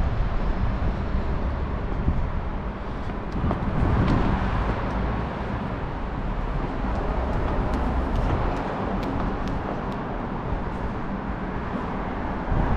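Outdoor city ambience: steady road-traffic noise with a low rumble.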